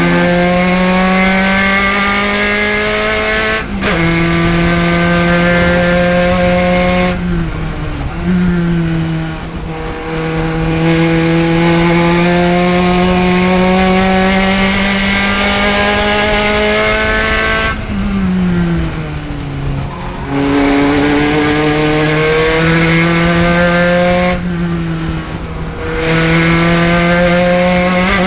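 Spec Racer Ford's four-cylinder race engine at full throttle, its pitch climbing through the revs. There is a quick drop and pick-up for an upshift about four seconds in. Three times the engine backs off and falls in pitch for braking and downshifts before pulling hard again.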